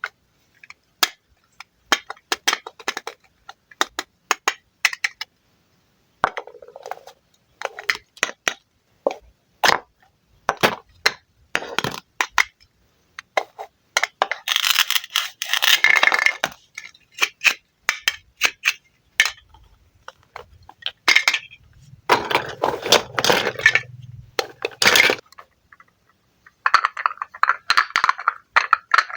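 Wooden play fruit being cut and handled with a knife: a run of sharp clicks and taps, broken by a few longer scraping stretches about halfway through, again past two-thirds of the way, and near the end.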